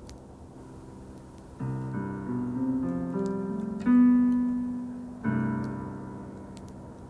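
Background piano music: slow chords struck and left to ring and fade, the loudest about four seconds in.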